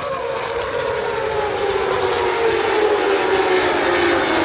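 A pack of MotoGP racing motorcycles running at high revs, growing louder as they approach, the engine note sliding slowly down in pitch.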